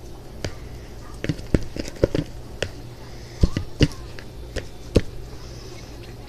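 A dozen or so short, irregular knocks and clicks, like objects being handled and set down on a hard surface, over a low steady background hum.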